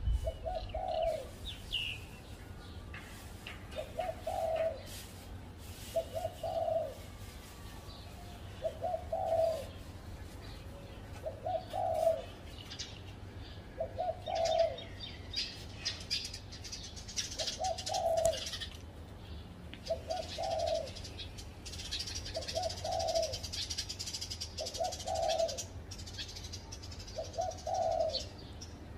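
Spotted dove cooing: short, low coo phrases repeated about every two and a half seconds. Smaller birds chirp in the background, most in the second half.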